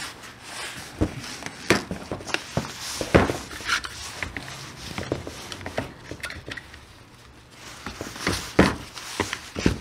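Plastic spring clamps and tools being handled against a work surface: scattered clicks and knocks, a few of them sharper and louder.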